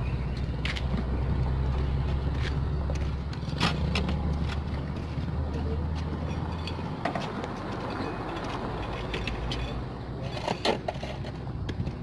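A vehicle engine running with a low, steady hum that fades out about seven seconds in, with scattered clicks and knocks, the loudest near the end.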